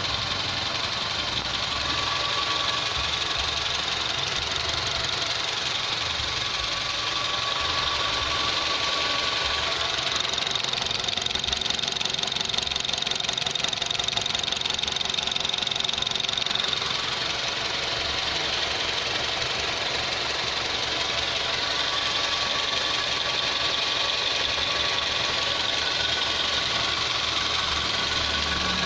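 Honda CR-V engine with its stock exhaust running steadily at an even level, with no revving.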